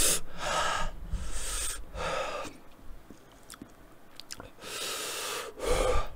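A man breathing hard through his mouth: a run of heavy, noisy breaths in and out, a pause of about two seconds, then two more. His mouth is burning from very hot sauce.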